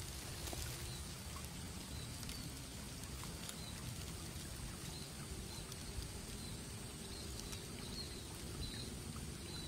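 Steady high drone of insects, with short high chirps repeating roughly once a second and a low rumble underneath; a single light tick about six seconds in.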